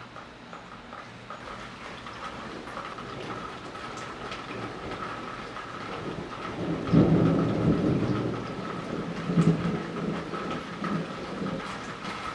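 Thunder rolling in after a nearby lightning flash: a low rumble that builds to its loudest about seven seconds in, swells again about two seconds later, then fades.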